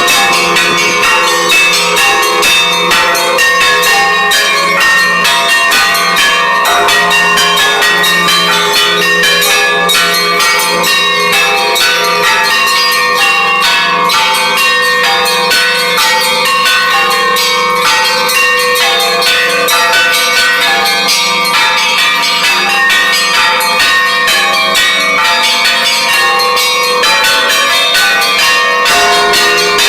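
Orthodox church bells rung in a continuous peal, with many bells of different pitches struck in quick rhythmic succession without a break.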